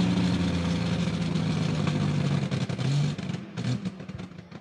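Off-road vehicle's engine running hard at steady revs, then dropping in pitch and fading away about three seconds in.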